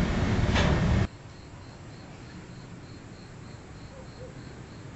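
A loud rushing noise of storm rain and wind cuts off abruptly about a second in. Crickets are then left chirping faintly in a regular high pulse, about three chirps a second, over a quiet background hiss.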